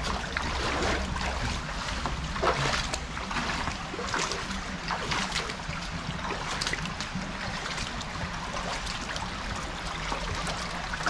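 Footsteps wading and splashing through a shallow brook, irregular splashes over the steady rush of running water.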